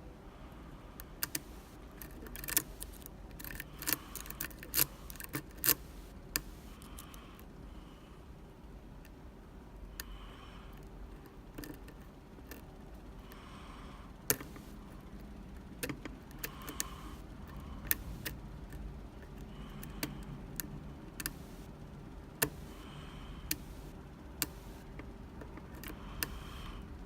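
Lock pick and tension wrench working the pins of a Medeco Classic lock, making irregular light metallic clicks and ticks, most frequent in the first few seconds.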